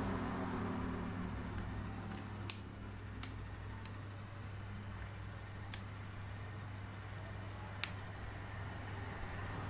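A few sharp, irregular clicks as a small plastic rocker switch is pressed into a hole in a PVC pipe and the pipe is handled, over a steady low hum.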